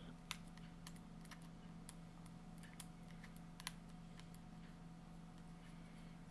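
Small screwdriver tightening a tiny screw into the metal housing of a handheld laser chain aligner: faint, irregular light clicks and scrapes of the tool in the screw head, over a steady low hum.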